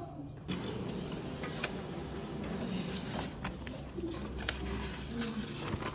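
Sheets of printed paper rustling and crinkling as they are handled, with a few sharp crackles. A steady hum of indoor background noise runs underneath.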